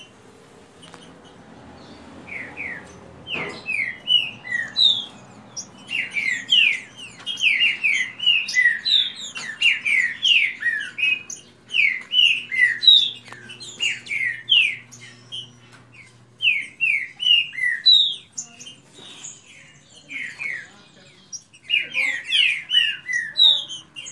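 Caged green-winged saltators (trinca-ferro) singing rapid phrases of short, down-slurred whistled notes, trading song in a singing duel. The song starts a couple of seconds in, goes quiet briefly, then picks up again near the end.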